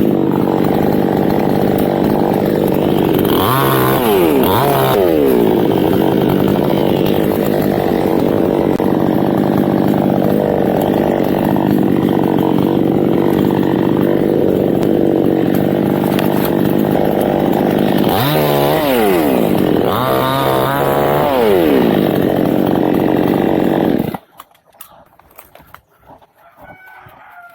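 Chainsaw engine running steadily, its pitch rising and falling twice, at about 4 seconds and about 19 seconds in. It cuts off abruptly about 24 seconds in.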